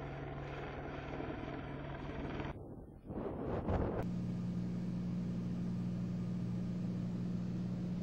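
Helicopter in flight, a steady drone of turbine and rotor. About two and a half seconds in it cuts to a brief jumble of noise, then a second steady helicopter drone at a slightly different pitch, which swells near the end.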